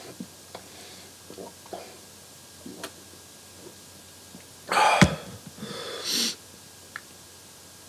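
Faint gulping swallows of beer chugged straight from a 40 oz bottle, then about five seconds in a loud gasping breath as the bottle comes down, followed by a second, weaker breathy exhale.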